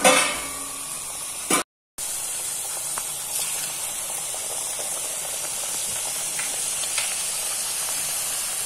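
Thattai dough discs deep-frying in hot oil: a loud surge of sizzling right at the start, then a steady sizzle with a few small pops.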